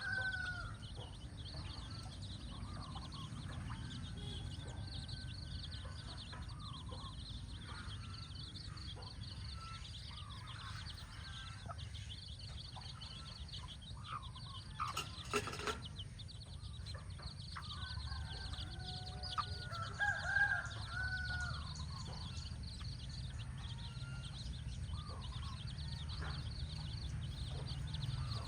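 Chickens calling: a few drawn-out, pitch-bending calls, the clearest about twenty seconds in, over a constant high-pitched chirping and a low rumble. A brief sharp noise comes about fifteen seconds in.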